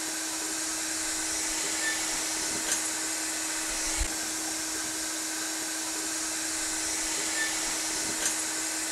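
Shop vacuum running with a steady whooshing drone and a steady hum underneath, with a few faint ticks.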